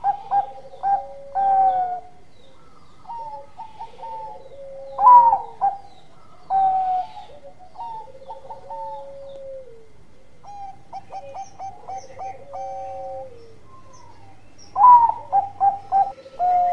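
Bangkok-strain zebra dove singing its cooing song. A phrase comes about every five seconds: a loud opening note, a quick run of short coos, and a long falling coo at the end.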